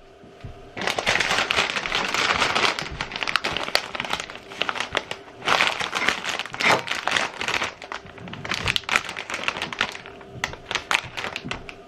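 A plastic potato chip bag crinkling as it is handled. The crinkling starts about a second in and is dense for several seconds, then thins to scattered crackles in the second half.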